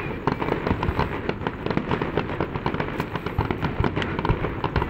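Fireworks going off in a dense, continuous run of crackling pops and bangs, many per second.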